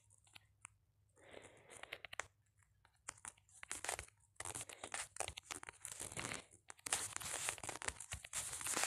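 Irregular rustling and crinkling noises close to the microphone, sparse at first and busier in the second half.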